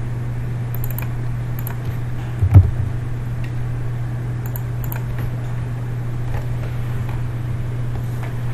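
Faint clicks of typing and mouse clicks on a laptop over a steady low hum, with a single dull thump about two and a half seconds in.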